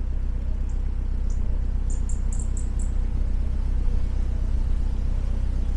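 Narrowboat diesel engine idling with a steady low hum. Short, high-pitched chirps come over it, mostly a quick run of about five a little past two seconds in.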